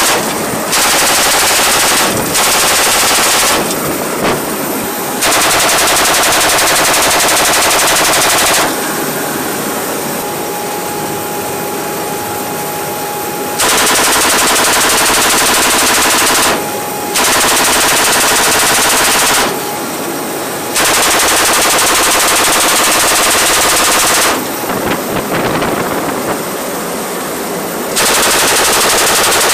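M240 7.62 mm machine gun firing about seven long bursts of one to four seconds each from the loading ramp of an MV-22B Osprey, with the aircraft's steady drone between bursts.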